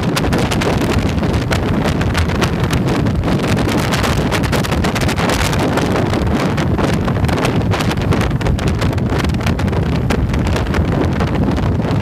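Steady wind buffeting the microphone of a motorcycle riding at road speed, with the bike's engine and road noise underneath.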